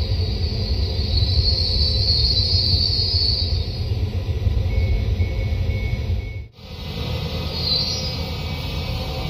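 Trenitalia Pop (Alstom Coradia Stream) electric regional train pulling into a station, a loud low rumble with a high squeal of wheels or brakes over the first few seconds. Four short even beeps come a little before the middle, and after an abrupt cut the rumble of a train at the platform goes on with a brief squeal.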